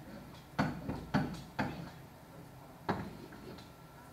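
A few sharp knocks and taps, about five spread over four seconds, each dying away quickly.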